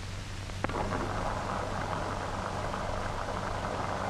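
Hiss and crackle of an old optical film soundtrack over a steady low mains hum, with one click about two-thirds of a second in.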